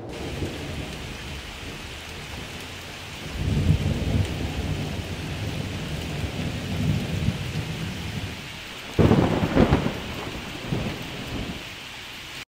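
Steady rain falling, with a low rumble of thunder rolling in about three seconds in and a louder, sharper peal about nine seconds in.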